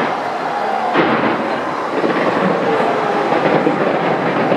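New Year fireworks going off in quick succession, a dense rumble of bursts and crackles with many sharp pops, over the voices of a large crowd.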